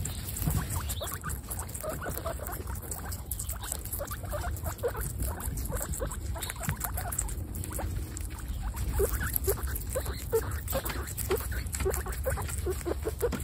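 Several guinea pigs crunching and chewing strips of raw red capsicum (bell pepper), a dense run of quick, overlapping crunches that grows busier about nine seconds in. A steady low rumble runs underneath.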